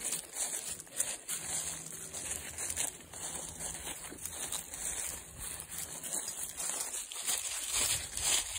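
Dry fallen leaves and grass rustling and crunching under the feet of a walker and a dog on a leash, a string of small irregular crackles.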